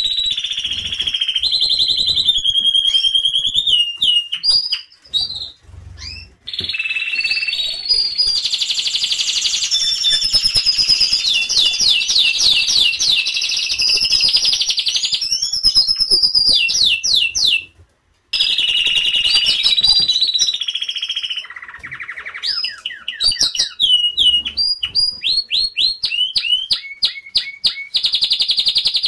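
Domestic canaries singing a long, high-pitched song of rapid trills, rolls and quick repeated down-slurred notes, with a brief break about two-thirds through.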